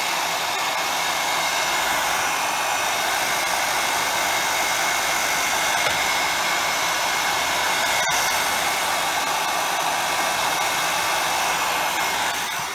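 Handheld hair dryer running steadily, blowing hot air, with a steady whine over the rush of air.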